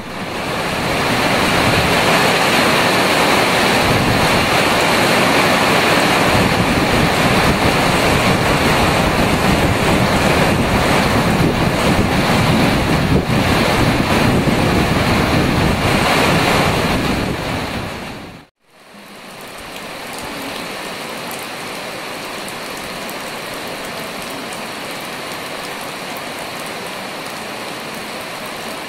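Heavy rain falling steadily on forest foliage and a wet wooden boardwalk, a dense even hiss. About two-thirds of the way through it cuts out for a moment and comes back quieter.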